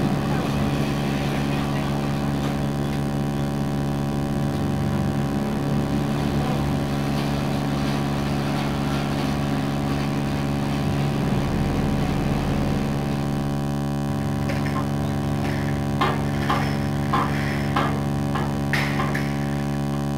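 Forklift engine idling steadily, with a few short knocks near the end.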